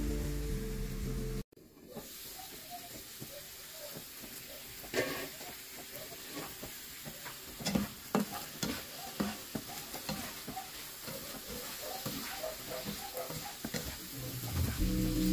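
Chicken gizzards stir-frying in a coated frying pan: a steady sizzle with a spatula scraping and tapping against the pan. Background music plays for the first second or so, cuts off suddenly, and comes back near the end.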